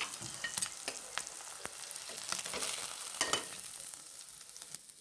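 Egg poach frying in mustard oil in a frying pan: a steady sizzle with sharp crackles, and the scrape and tap of a spatula as the cooked egg is lifted out. The sizzle thins toward the end.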